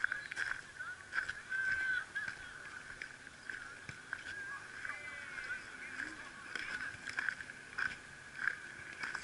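Birds calling, a dense, steady chorus of short chirps and calls with a few louder curved calls, along with scattered short clicks.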